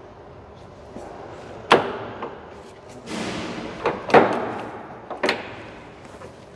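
Speed-change levers on a LeBlond Regal 19-inch lathe's headstock being shifted: about six sharp metal clunks and clacks, the loudest about two and four seconds in.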